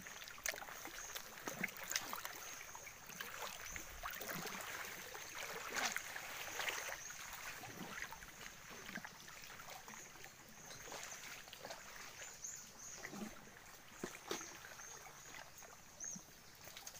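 Shallow water sloshing and lapping around wading legs, with small irregular splashes and drips, behind a faint steady high tone.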